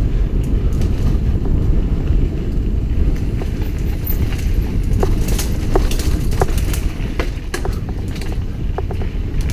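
Mountain bike riding over a dirt trail, heard from a helmet-mounted camera: a steady rumble of tyres and wind on the microphone, with frequent sharp clicks and rattles from the bike and trail surface.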